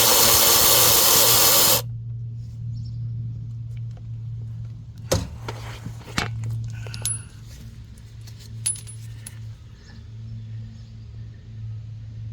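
A loud power tool runs and stops abruptly about two seconds in. Then loose steel bolts clink several times against each other and a metal surface, over a low steady hum.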